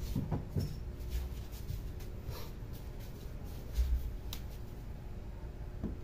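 A few soft taps, scrapes and handling noises over a faint steady hum, with a dull low thump a little before four seconds in.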